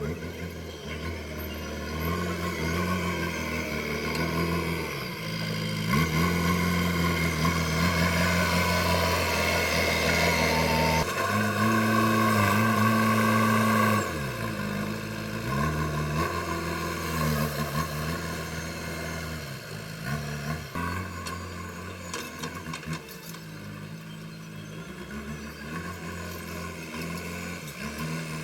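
JCB backhoe loader's diesel engine working under load, revving up and dropping back several times as the hydraulics are worked, loudest in the middle stretch.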